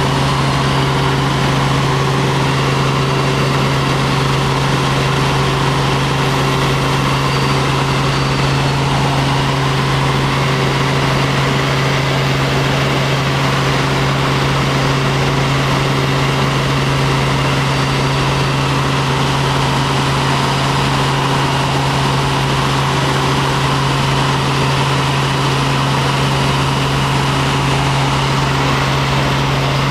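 Helicopter in flight: the steady drone of its turbine engine and rotors, a strong unchanging hum over dense engine and air noise.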